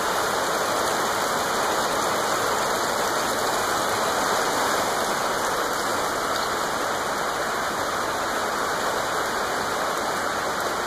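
Steady heavy rain falling on a lawn, trees and a puddled gravel drive: an even, unbroken hiss.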